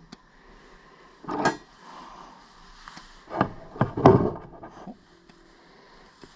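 Several dull knocks and clunks of things being handled and set down on a wooden workbench: one about a second and a half in, and a louder cluster around three to four seconds in.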